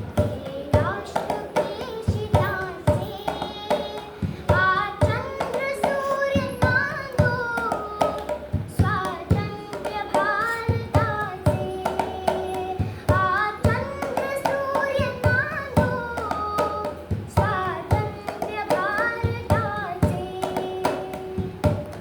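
A young girl singing a melodic song in repeating phrases, over a steady beat of percussion strokes.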